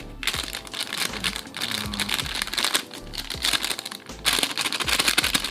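A plastic packet of powdered milk crinkling and rustling as it is handled and the last of the powder is shaken out, over background music.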